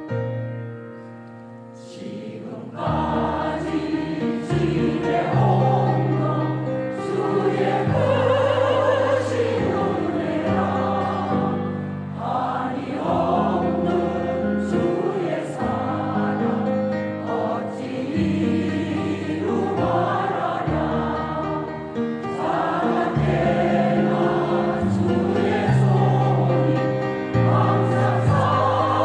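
Church choir singing a gospel hymn, softer for the first couple of seconds, then the full choir comes in.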